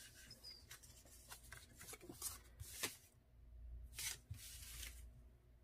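Faint rustling and sliding of paper cards and cardstock being handled and sorted, a series of short scratchy strokes, the strongest about four seconds in.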